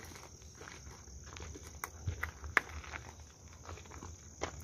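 Steady high insect trilling, typical of crickets, with footsteps crunching on forest ground and scattered small clicks. A sharp click a little past halfway is the loudest sound.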